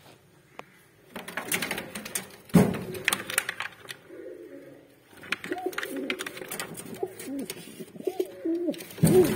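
Domestic pigeons cooing, a run of wavering, rising-and-falling coos through the second half, over scuffling and rustling in the nest bowl. Two loud thumps stand out, one about two and a half seconds in and one near the end.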